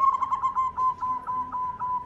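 Zebra dove (perkutut) cooing: a quick trill of short, clear notes running into a steady string of clipped coos, about five a second, that fade near the end.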